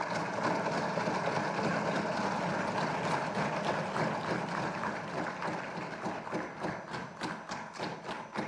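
A hall full of legislators clapping and cheering, a dense wash of claps and voices that thins out in the second half into separate, distinct claps.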